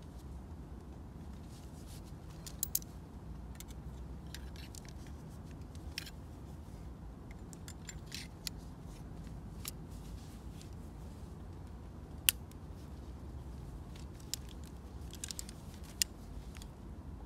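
Scattered light metallic clicks and ticks, the sharpest about twelve seconds in, from a Soviet general-forces dirk's gilt brass hilt, crossguard and scabbard fittings as it is handled in gloved hands and the blade is slid into its scabbard.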